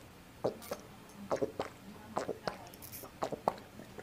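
A person gulping down a drink from a glass close to the microphone: a steady run of swallows, mostly in pairs, about one pair a second.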